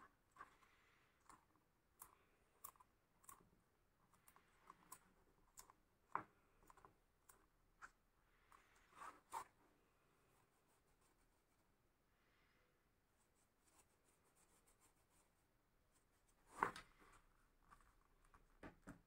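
Faint handling sounds of hand-stitching leather: small irregular clicks and scrapes as a needle goes through pre-punched stitching holes and the thread is drawn through. There is a sharper click about six seconds in and a longer, louder handling sound near the end.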